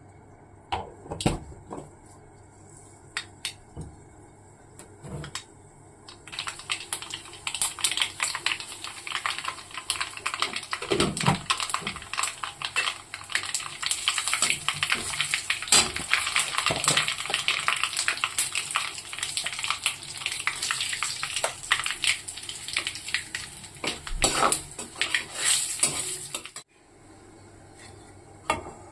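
Metal utensils clinking and scraping against a cooking pan. From about six seconds in, food sizzles in the pan under a steady hiss, with many quick clicks of stirring, until it stops shortly before the end.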